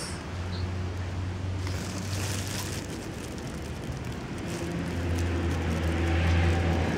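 A motor vehicle's engine running nearby: a steady low hum, louder toward the end.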